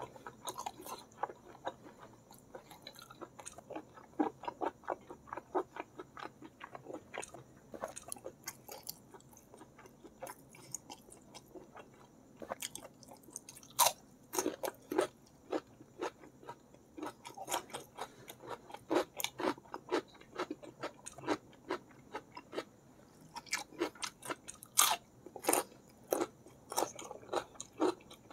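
Close-up mouth sounds of a person eating spicy squid balado with rice and raw side vegetables: steady wet chewing and lip smacks, with a few louder crunchy bites about halfway and again near the end.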